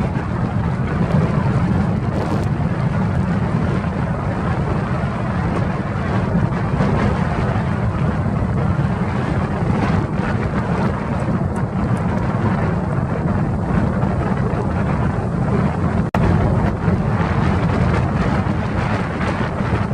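Strong north wind buffeting the microphone in a loud, steady rumble, cutting out for an instant about sixteen seconds in.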